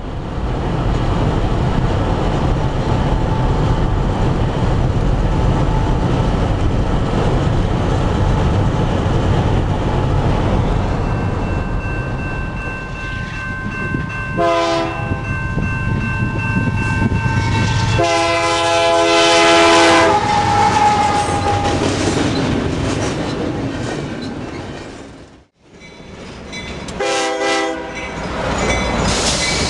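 Canadian Pacific and Union Pacific diesel freight locomotives passing close by under power, a steady heavy engine rumble with wheel noise. An approaching Canadian Pacific freight then sounds its air horn, several notes together: a short blast, a long blast, and after a brief break in the sound another short blast.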